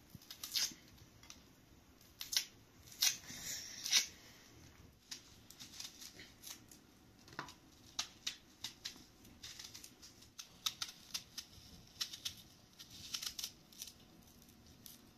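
A kitchen knife slicing through a red onion held in the hand, cutting it into rings: irregular crisp crunches and snaps, some in quick runs.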